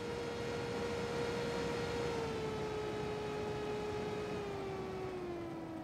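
Small Delta DC cooling fan on the back of a Rigol DHO800 oscilloscope, running with a steady whine over a hiss of airflow. The whine steps down in pitch about two seconds in and again near the end as the fan's drive voltage is turned down from 8 volts toward 5.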